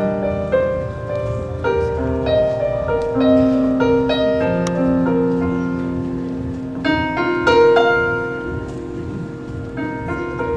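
Piano playing a slow song introduction: chords struck every second or so and left to ring under a simple melody line.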